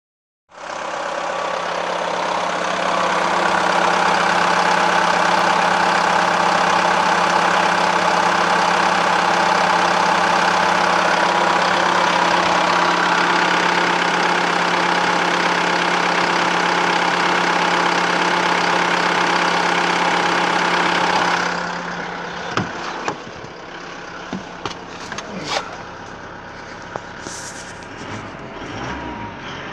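2017 Isuzu D-Max's 3.0-litre four-cylinder turbo-diesel idling steadily with the bonnet open. About 21 seconds in it becomes quieter and more muffled, heard from inside the cab at idle, with a few clicks and knocks.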